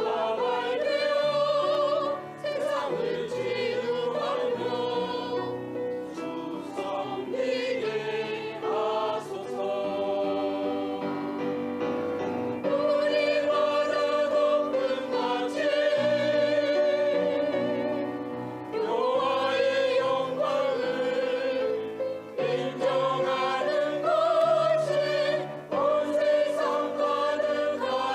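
A church choir singing a sacred anthem in several-part harmony, in long held phrases with vibrato.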